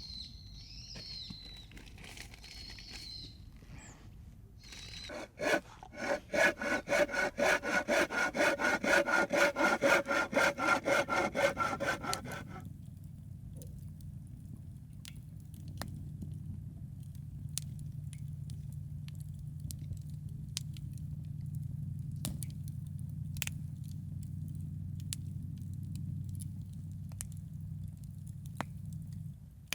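A hand saw cutting firewood in quick, even back-and-forth strokes, about four a second, for roughly seven seconds, stopping abruptly. After that, a campfire burns with a steady low rumble and occasional sharp crackles.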